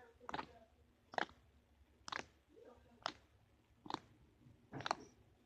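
Slime being poked, giving short wet squelching pops about once a second, six in a row.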